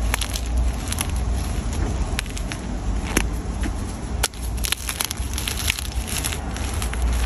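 Chalk blocks being crushed, giving many irregular sharp crackles and crunches over a steady low rumble of wind on the microphone.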